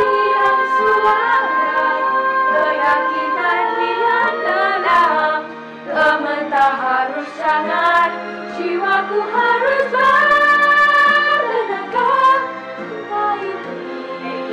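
A small group of girls from a children's choir singing a cappella in harmony, with long held chords and sliding melodic lines.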